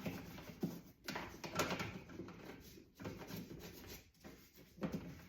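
A brush scrubbing a grooved part inside a dishwasher: irregular scratchy strokes.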